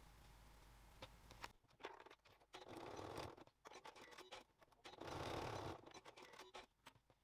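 Domestic sewing machine stitching in two short runs of about a second each, basting folded webbing straps, after a few light clicks of fabric clips being handled.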